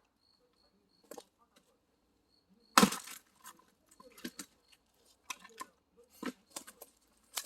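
Split firewood knocking and clattering as it is handled: one loud wooden knock about three seconds in, followed by a series of lighter knocks.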